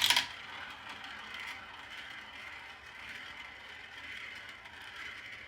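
Glass marbles rolling and rattling along a marble run track, with a brief louder clatter at the very start, then a steady, quiet rolling rattle.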